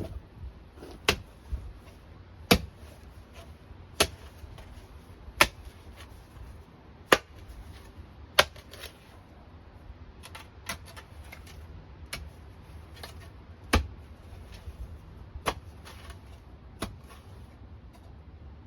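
About a dozen sharp knocks or taps, spaced irregularly a second or two apart, over a low steady rumble.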